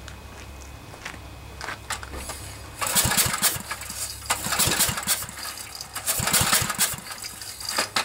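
A 10 hp Briggs & Stratton generator engine being cranked over without firing, starting about three seconds in, with a rhythmic puffing of air escaping on each compression stroke. The owner takes the puffing for a blown head gasket, since the engine has fuel and spark.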